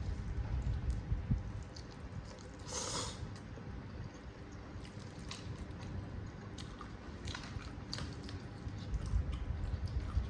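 Close-miked chewing and wet mouth sounds of someone eating saucy instant noodles (mie nyemek), with small clicks throughout and one brief, louder noisy sound about three seconds in.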